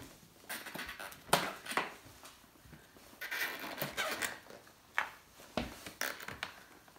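Handling noise from a plastic ventilation-duct cargo tube with its end cap and side handle: a handful of sharp clicks and knocks, with about a second of scraping and rubbing in the middle.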